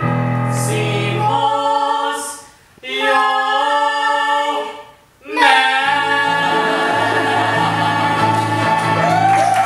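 A man and a woman singing the final phrases of a musical-theatre duet with piano accompaniment: three held phrases broken by two short pauses, ending on one long sustained note together.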